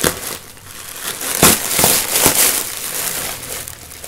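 A shipping mailer package crinkling and rustling as a plush toy is pulled out of it, with a dense run of sharper crackles about a second and a half in.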